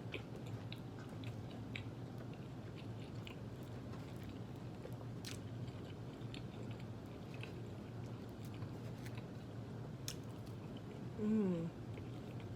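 Close-up chewing and biting of fried chicken, with scattered small crisp clicks of the crust and mouth. A brief hummed voice sound comes near the end.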